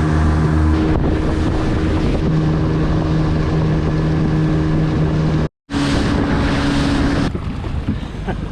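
A steady engine drone with a rushing, wind-like noise over it, the sound of a motor vehicle or boat running; it cuts out abruptly for a moment about five and a half seconds in, then resumes.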